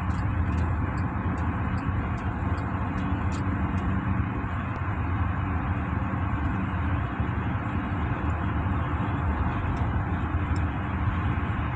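Steady road and engine noise inside a car's cabin while driving at highway speed, a low rumble with hiss over it. A few faint light ticks come in the first few seconds.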